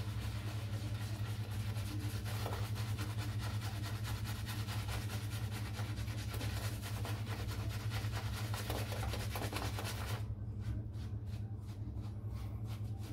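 Shaving brush whisking shaving-soap lather in a bowl after water has been added, a fast, even swishing that thins out about ten seconds in. A steady low hum runs underneath.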